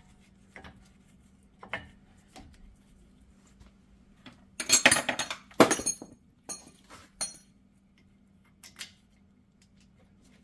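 Metal brake parts clinking and rattling as a brake caliper is worked into place over the pads and rotor: scattered single clicks, with a burst of clattering about halfway through.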